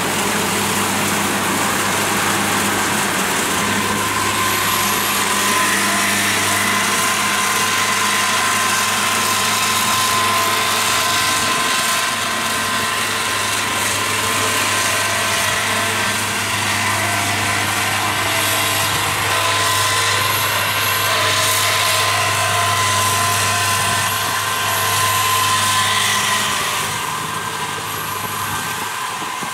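Kubota DC70 Plus rice combine harvester running under load as it cuts and threshes lodged rice. Its diesel engine and threshing machinery run steadily, with a steady high whine over the engine hum. The sound eases a little near the end.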